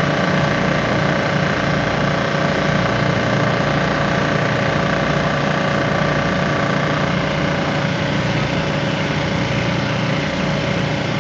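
Fire engine's diesel engine running steadily at close range, a constant hum with no change in speed.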